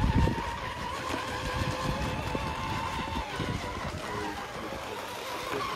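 Electric radio-controlled sport hydroplane boats running laps on the water, their motors and propellers giving a steady whine.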